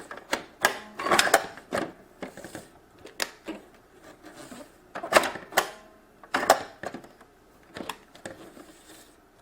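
Irregular plastic clicks and knocks from a toy electronic cash register as its on-off switch and buttons are worked and it is handled. It gives no sound of its own because it has no batteries.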